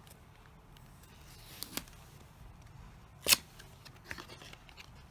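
Phone case packaging being handled and opened: soft rustling with a few sharp clicks, the loudest about three seconds in.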